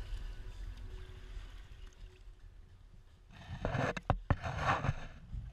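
Steady low rumble of wind and sea around a small boat. From about three and a half seconds in comes a louder rushing stretch, broken by a few sharp knocks, lasting about two seconds.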